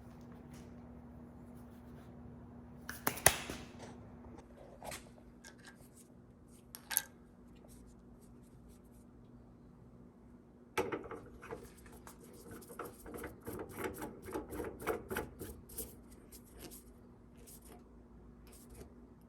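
Small hard objects being handled: a sharp knock about three seconds in, another a few seconds later, then a run of quick clicks and rattles lasting about five seconds, over a steady low hum.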